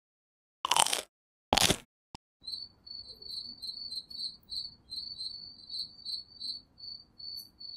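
Two short bursts of noise, then a cricket sound effect: a steady run of high-pitched chirps, a few a second, setting a night scene.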